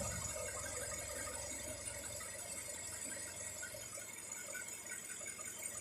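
Faint steady hum of a car's engine bay at idle, just after a louder running sound cuts off, with light rapid ticking over it.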